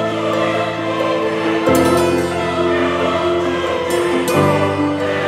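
Background music: sustained held chords that change about every two seconds.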